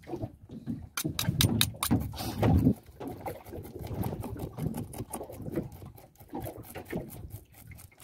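A knife scraping the scales off a small snook on a cutting board: a quick, irregular run of short scratchy strokes over a low rumble that is loudest in the first half.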